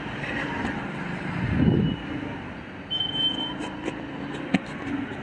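Gas brazing torch flame running with a steady rushing hiss, swelling briefly about a second and a half in, with a few light clicks of pipe work, as copper refrigerant lines are brazed.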